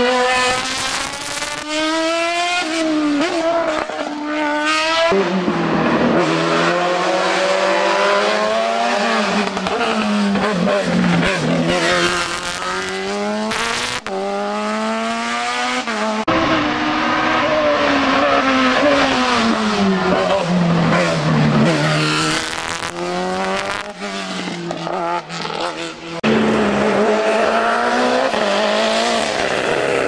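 Racing engines of single-seater hill-climb cars revving hard as they pass, the pitch climbing and dropping again and again through gear changes. Several passes follow one another, with abrupt changes where the footage cuts.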